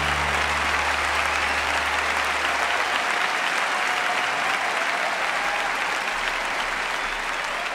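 Audience applauding steadily at the end of a song, the song's last low held notes fading out within the first few seconds.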